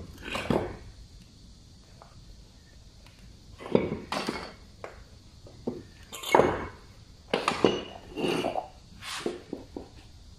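Metal tools and parts clinking and clanking while being handled: about ten irregular knocks and short scrapes, after a quiet first few seconds.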